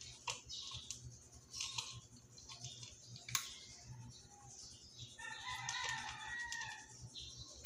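Tabby cat crunching dry kibble from a plastic bowl: scattered sharp crunches and clicks, the loudest a little past three seconds in. A drawn-out pitched call sounds in the background for about two seconds, starting about five seconds in.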